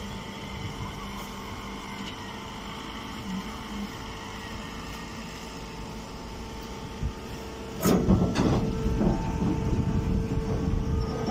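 Stationary hay and silage bagging press running with a steady machine hum. About eight seconds in, a sharp knock is followed by a few seconds of louder, uneven clattering noise.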